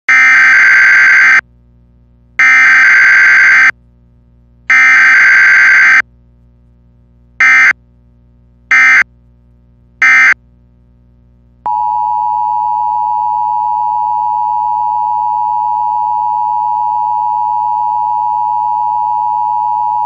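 Emergency Alert System broadcast tones: three long bursts of digital SAME header data, then three short bursts, then, from about halfway through, the steady two-tone EAS attention signal.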